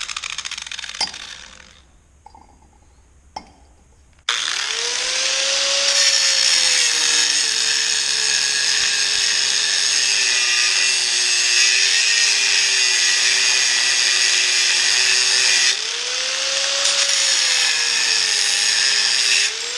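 Electric power tool cutting steel. A run winds down and stops, a couple of clicks follow, then about four seconds in the motor starts again and runs for around fifteen seconds. Its pitch drops as it bites into the metal and rises briefly when it eases off near the end.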